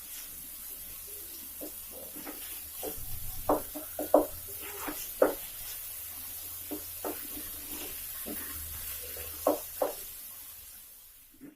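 Tomatoes and spices being stirred in a cooking pan: irregular knocks and scrapes of the utensil against the pan, over a faint steady sizzle.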